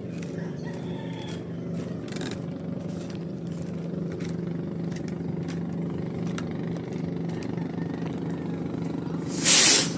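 A kwitis skyrocket firing: a loud, half-second rush of noise about nine and a half seconds in as the rocket goes off carrying a 15-gram test load. A steady low engine hum runs underneath.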